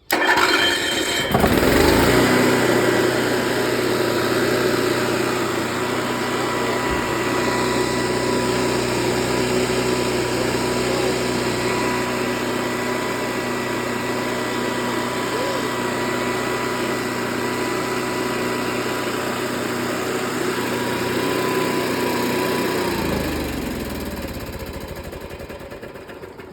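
Onan MicroLite RV generator engine cranked by its electric starter for about two seconds, catching and running at a steady governed speed. About twenty seconds later it is shut off and the pitch falls as it spins down. It starts and runs properly on its newly replaced wiring harness.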